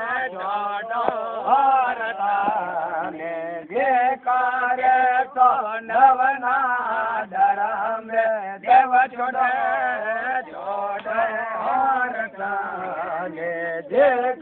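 A man chanting a devotional chant in a wavering, gliding melodic line, the phrases broken by short breaths about every four to five seconds.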